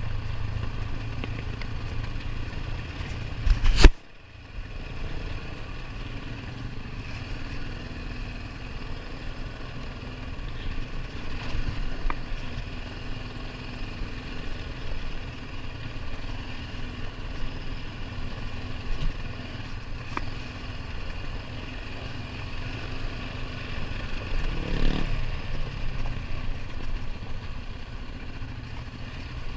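ATV engine running steadily while riding, with a single loud thump about four seconds in and a brief rise in engine pitch near the end.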